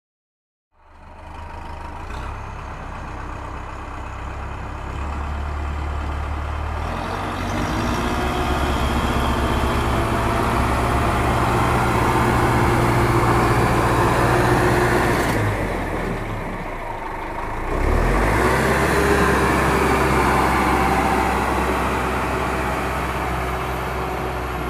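A heavy engine running with a steady low rumble, starting about a second in, its pitch rising and falling as it revs. It drops back briefly about two-thirds of the way through, then picks up again.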